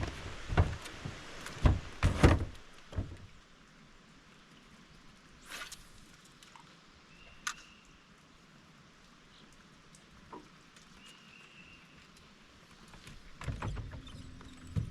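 Knocks and thumps from an angler moving around a fishing boat and handling gear: a cluster of loud sudden thumps in the first three seconds, a few scattered clicks, then more thumps near the end.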